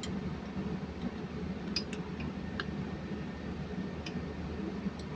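A handful of light metallic ticks and clinks from metal parts being handled during engine assembly, over a steady low hum.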